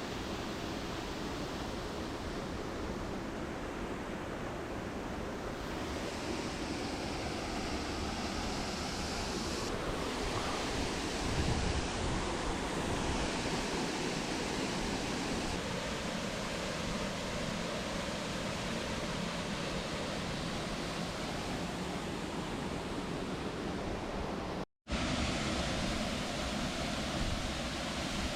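Steady rush of falling and fast-running water from a waterfall, its tone shifting slightly a few times and cutting out for an instant near the end.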